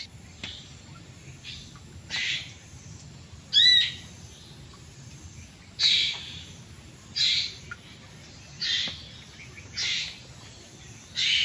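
Birds calling: a short scratchy call repeated about every one to two seconds, and one clear wavering whistle about four seconds in.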